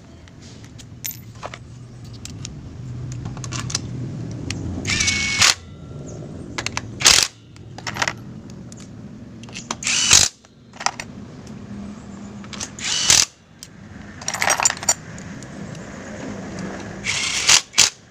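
Reassembly of a scooter's CVT cover after a bearing replacement: metal parts clinking, with about six short half-second bursts of a power tool driving in bolts.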